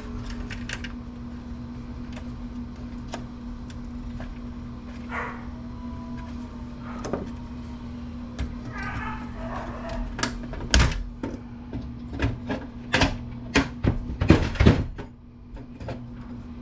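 Tools clicking and knocking against a computer circuit board while a small extruded aluminum heat sink is worked at to pry it off. It is stuck solid. Scattered taps give way to a run of sharper, louder knocks about two-thirds of the way in, over a steady low hum.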